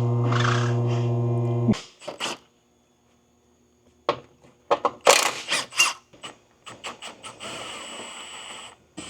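A steady music tone that cuts off suddenly about two seconds in, then, after a brief pause, a scatter of sharp clicks and knocks from tools working on car body parts, ending in a steady mechanical ratcheting run of a second or two.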